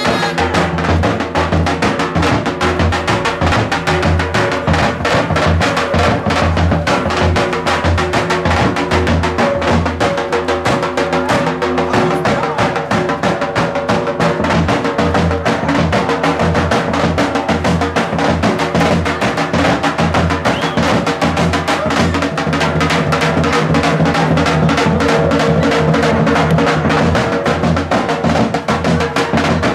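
Loud music with a busy, driving drum beat of bass drum and snare over held melodic tones.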